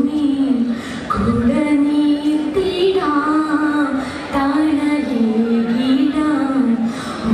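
A woman singing solo into a microphone, a slow melody with long held notes that bend and waver in pitch, broken by short pauses between phrases.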